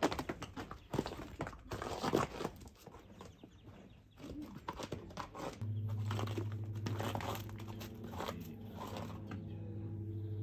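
Rustling, crackling handling noise in short bursts for the first few seconds. About five and a half seconds in, a steady low hum with several even tones starts and slowly grows louder.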